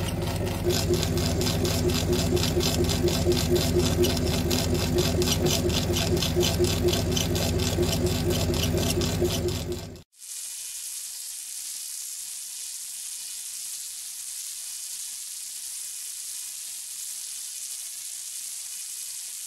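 CO2 laser engraver working a rubber stamp blank, its head shuttling back and forth with a rapid, even pulsing over a steady machine hum. About halfway through this cuts off abruptly, leaving a steady high hiss.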